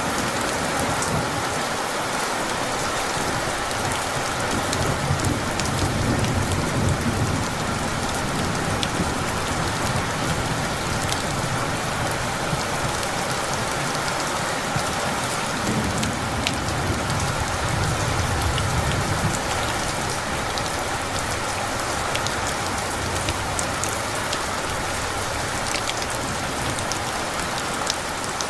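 Steady heavy rain hissing, with scattered drop ticks. Low rumbles of rolling thunder swell and fade twice, the first a few seconds in and the second past the middle.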